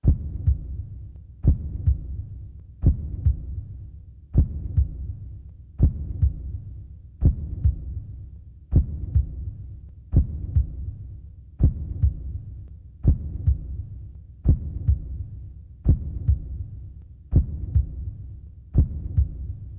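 Slow, heavy double thumps like a heartbeat, a strong beat followed closely by a weaker one, repeating about every second and a half over a low droning hum.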